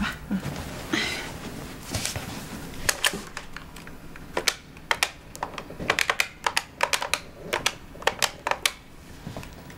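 Keypad buttons on a corded desk telephone clicking as a number is dialled: a string of sharp, irregular clicks starting about two seconds in and coming fastest near the end.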